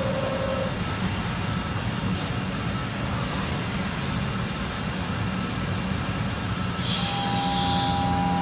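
Haas VF-3 CNC vertical machining center running, with a steady mechanical hum and noise. A steady whine stops about half a second in. About seven seconds in, a new steady whine starts together with a high, wavering squeal.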